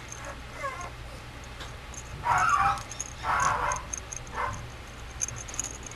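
Mame shiba puppy giving three short, high cries about a second apart, starting about two seconds in; the last cry is the shortest.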